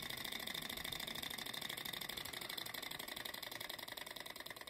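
Small desktop hot-air Stirling engine running on its spirit-lamp flame, its flywheel and crank linkage making a rapid, even clatter that eases off slightly near the end.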